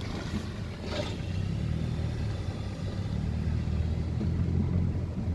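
Mercedes-Benz SLK200 driving slowly over a rough unpaved road, heard through an open driver's window: a steady low rumble of tyres and running gear, with a short knock about a second in. It is the underbody clatter (달그락) on the driver's side that comes from loosened suspension bolts and nuts.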